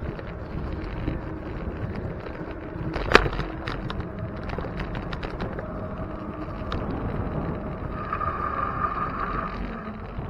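Riding noise from a moving bicycle: wind buffeting the microphone over a steady road rumble. There is one sharp knock about three seconds in, and a steady high tone lasting a second or so near the end.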